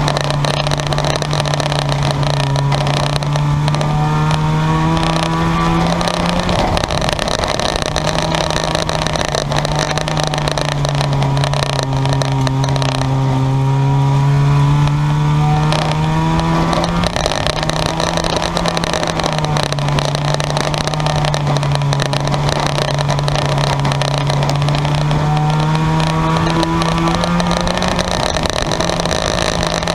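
Junk-yard race cars running flat out on an oval track: a steady, loud engine drone, with an engine note swelling and falling away three times as cars come past.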